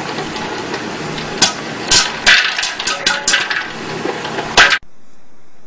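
Popcorn kernels popping in an electric popcorn popper with a clear dome lid: a steady hiss from the machine with about ten sharp pops, coming thicker from about a second and a half in. Near the end the sound cuts off abruptly to a steady, quieter hiss.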